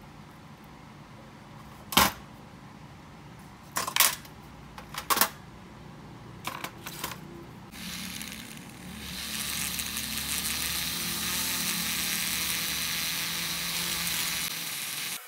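A few sharp metallic clicks as small wire brush bits and a rotary tool handpiece are handled. From about eight seconds in, a flexible-shaft rotary tool spins a small wire brush against a motorcycle carburetor body: a steady whir with a scratchy hiss, stopping abruptly just before the end.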